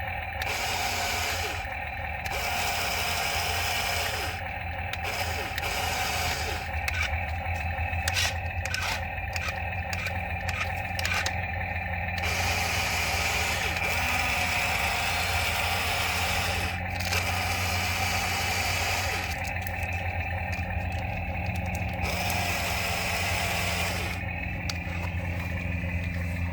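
Small electric motors of a toy RC excavator whining as it runs, the tone shifting now and then as different functions are worked, with a run of sharp clicks partway through.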